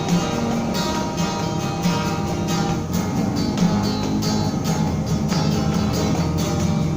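Acoustic guitar strummed in a steady rhythm, with no singing, as the instrumental part of the song plays on.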